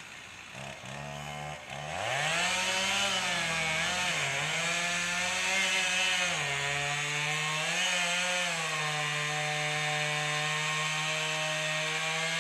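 Two-stroke chainsaw running low for about a second, then revved up and held at full throttle as it cuts through a tree trunk. Its pitch sags a few times as the chain bogs under load. This is the felling cut just before the tree starts to go.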